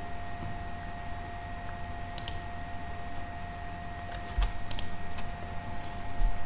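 A few sharp computer clicks, one about two seconds in and a small cluster around four and a half to five seconds, over a steady background hum with a thin high whine.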